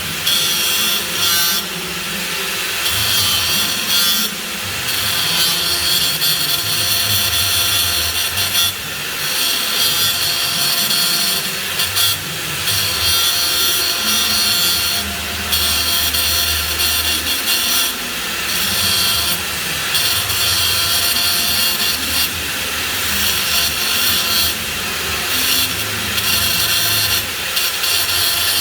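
Flux-cored arc welding on pipe: the arc crackles and sizzles steadily, broken by a few brief dips, over a low hum.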